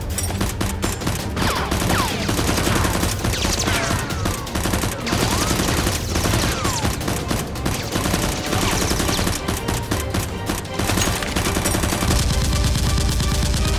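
Rapid automatic gunfire sound effects: a dense, continuous stream of shots dubbed over toy blasters, with several falling whistles through the first two-thirds. The fire turns heavier and deeper in the last couple of seconds.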